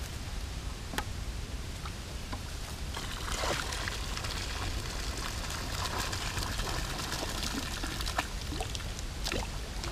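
Water poured from a five-gallon plastic bucket splashing into a creek, releasing the small fish caught in it. It starts about three seconds in and runs until shortly before the end, after a single click about a second in.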